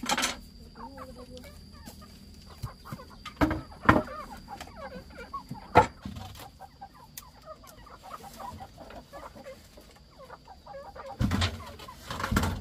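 Domestic chickens clucking, with several sharp knocks scattered through it, the loudest about four and six seconds in and near the end.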